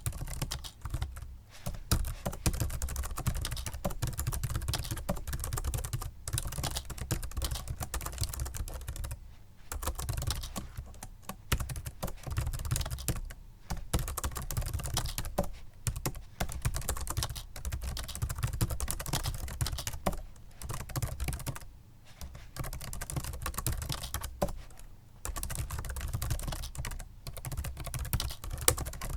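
Rapid typing on a Microsoft Sculpt Ergonomic membrane keyboard: fast runs of soft key presses broken by brief pauses, with a low hum underneath.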